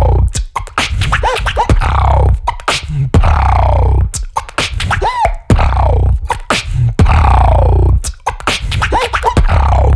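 Human beatboxing into a handheld microphone: a driving groove of sharp kick and snare hits over long stretches of deep vocal bass, with a falling vocal sweep about every two seconds.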